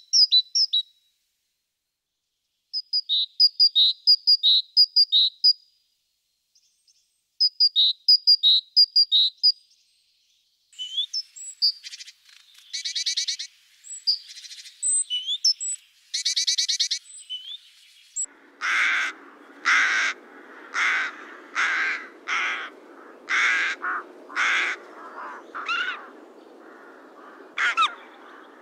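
Great tit singing: three bursts of quick repeated high notes, followed by more varied great tit calls. About two-thirds of the way through, a different animal takes over with a series of harsh calls, roughly one a second, over a steady background hiss.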